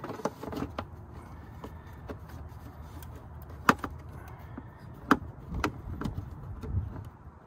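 Scattered light clicks and knocks of plastic parts being handled as an engine air filter and its plastic air box are fitted back together, with three sharper clicks about halfway through, over a steady low background rumble.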